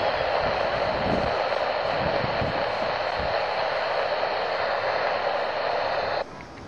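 Air-traffic-control radio hissing with an open carrier and no voice, the steady static of a stuck microphone holding the frequency. It cuts off suddenly near the end.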